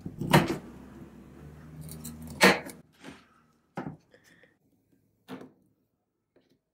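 Decorative upholstery tacks and gimp trim being pried off a wooden chair seat frame with a metal tool: a handful of sharp clicks and snaps. The loudest come near the start and about two and a half seconds in, and fainter ones follow.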